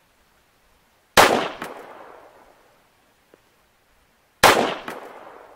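Two 9mm pistol shots, 115-grain FMJ rounds, about three seconds apart, each a sharp crack followed by an echo that dies away over about a second and a half.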